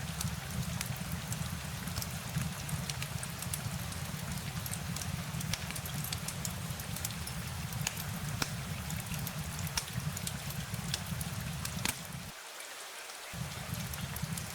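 Steady rain falling, with many sharp individual drop ticks over a low rumble that drops out for about a second near the end.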